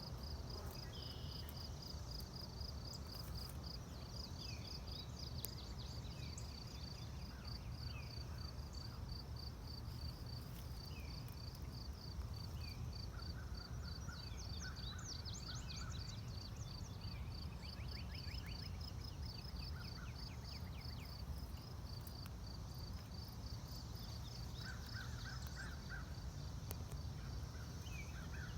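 Rural outdoor ambience: a steady, high, rapidly pulsing trill runs throughout, with scattered bird calls, including crow caws, and a low rumble underneath.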